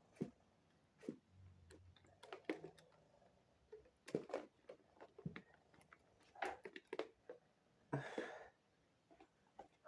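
Faint, scattered wet mouth sounds and clicks from a person drinking and swallowing close to the microphone, with a short breath out about eight seconds in.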